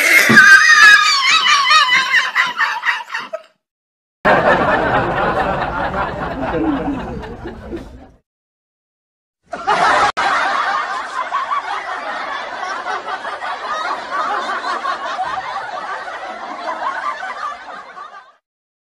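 Dubbed-in laughter sound effects, in three separate stretches cut off by dead silence: a few seconds at the start, another of about four seconds, then a longer one of about nine seconds that fades toward the end.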